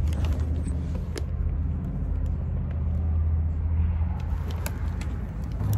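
Car engine idling: a steady low hum, with a few faint clicks.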